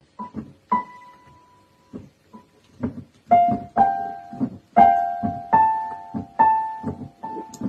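Piano keys pressed slowly and unevenly, a single note or two at a time, each note ringing briefly with a dull thud on the strike.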